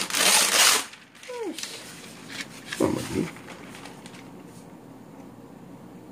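Parchment paper rustling and tearing off its roll: a loud crackling rip lasting under a second. It is followed by a short pitched sound that falls in pitch, then a brief voice-like sound about halfway through.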